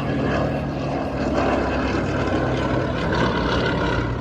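Piston engine and propeller of a vintage light aircraft running steadily, close by.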